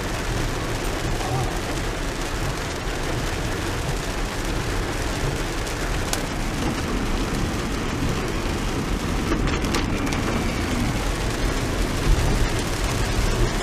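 Steady rain falling on a car, mixed with the low road noise of the car driving on a wet road, heard from inside the cabin.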